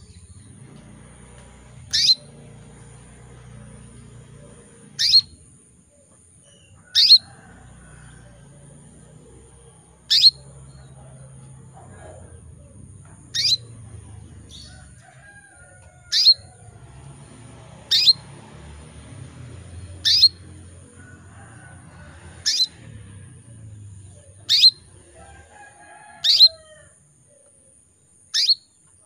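Female canary in breeding condition giving single sharp contact calls, the call used to stir male canaries into song. About a dozen short chirps, each falling quickly in pitch, come roughly every two seconds over a faint low rumble.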